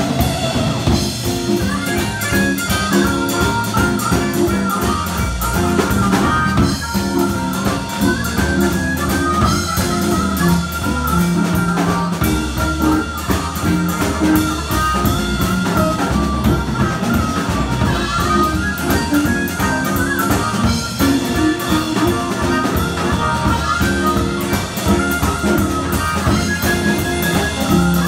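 Live blues band: a harmonica played cupped against a microphone, its notes bending, over electric guitar, electric bass and a drum kit. The harmonica comes in about a second in.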